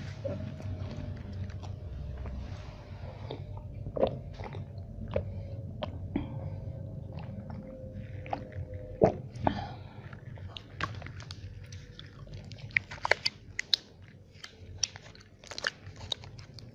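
Biting and chewing food close to a microphone: mouth sounds with scattered sharp, crunchy clicks that come thicker and louder in the second half.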